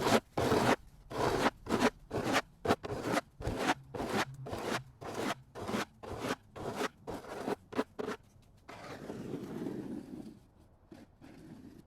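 Footsteps crunching through fresh snow at a brisk walking pace, about two to three steps a second, stopping about eight seconds in.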